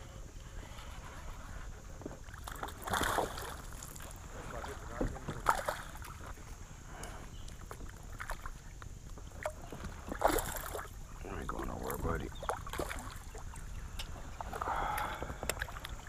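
A hooked smallmouth bass splashing at the surface beside a kayak as it is played and scooped into a landing net, in several short bursts with scattered knocks of gear against the kayak.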